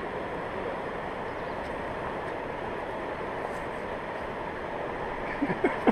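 Steady rush of the Gaulfossen rapids on the Gaula river, an even noise of fast-flowing water, with a couple of short pitched sounds near the end.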